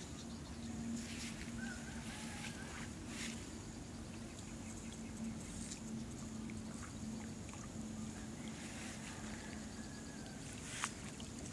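Small splashes and knocks of water and wood as hands work a fish trap at the pond's edge, over a steady low hum and a steady high hiss, with one sharp click near the end.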